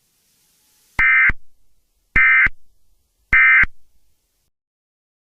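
Emergency Alert System end-of-message data tones: three identical short buzzy bursts about a second apart, signalling the close of the alert.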